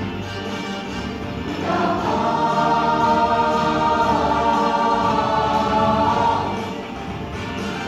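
Mixed-voice show choir singing an upbeat number in harmony. About two seconds in, the voices swell into a louder held chord, which eases back down near the end.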